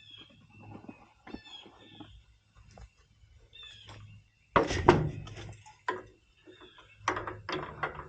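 Birds chirping in short repeated calls, broken by loud clattering knocks of tools and parts being handled, a big cluster about halfway through and another near the end.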